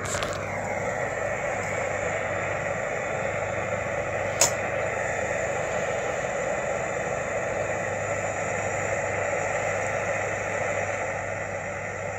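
Steady hiss of a small propane torch flame heating an oxalic acid vaporizer as it fumes a beehive. There are handling knocks at the start and one sharp click about four seconds in.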